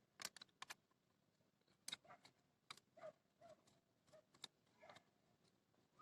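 Faint, irregular clicks and taps from tools and small parts being handled while a brushcutter is put back together.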